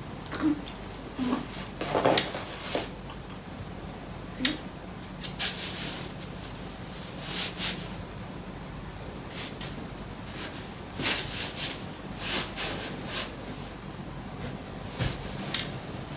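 Rustling and light clicks from hands handling cloth and small items at a baby's cot: short scattered sounds, the sharpest about two seconds in, about four and a half seconds in, and near the end.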